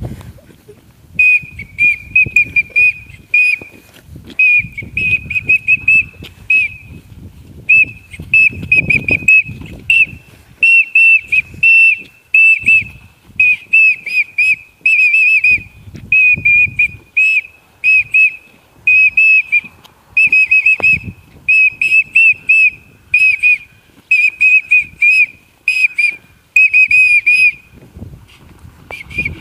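Shrill whistling held near one high pitch, in short warbling phrases repeated about once a second in a steady rhythm, with low rumbling noise underneath.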